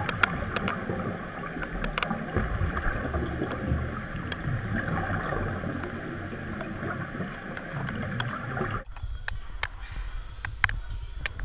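Underwater rush and gurgle of scuba regulator exhaust bubbles, with scattered clicks, heard through a camera underwater. About nine seconds in it cuts off abruptly, leaving a much quieter background with a few sharp clicks.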